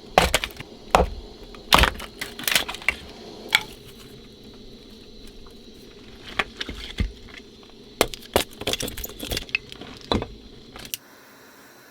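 An irregular clatter of sharp knocks, clicks and clinks as objects are handled and set down. A little before the end this gives way to a quieter, steady hiss.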